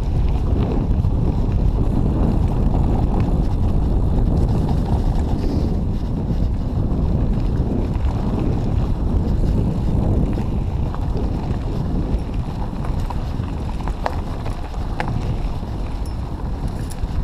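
Wind buffeting the camera microphone over the rumble of a mountain bike rolling down a rough double-track trail, with a few sharp clicks about two-thirds of the way in.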